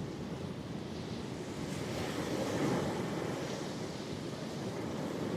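Ocean surf: waves breaking and washing onto the shore as a steady rush, swelling a little about two and a half seconds in.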